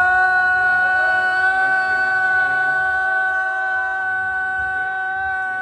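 A single long note held at one steady pitch, starting abruptly and sounding loud throughout.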